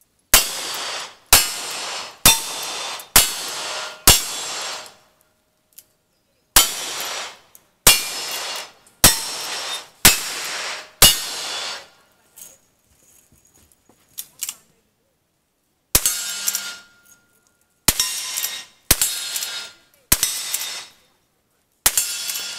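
Gunshots from single-action revolvers: two strings of five, about one shot a second, with a short pause between. From about two-thirds of the way in, a lever-action rifle fires six more shots at an uneven pace, and steel targets ring after some of the hits.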